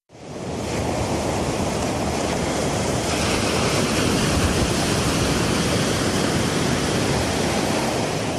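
Steady rushing noise that fades in at the start.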